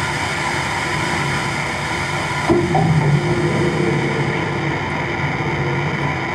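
Live electronic noise music played on effects pedals and synth modules: a dense, steady wall of noise, heaviest in the low end, with droning held tones coming in about two and a half seconds in.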